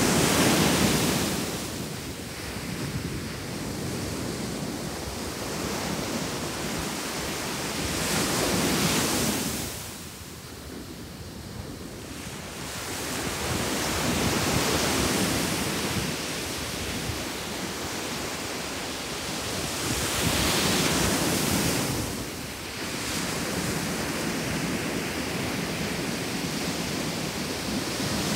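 Ocean surf breaking on a sandy beach, each wave swelling up and washing back about every six to seven seconds.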